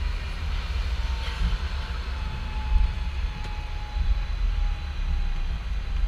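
Hong Kong tram running, heard from on board: an uneven low rumble with a faint whine that slowly falls in pitch.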